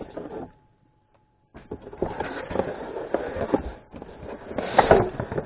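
Packaging rustling and crinkling with handling clicks as items are taken out of a box. There is a short silent break about half a second in.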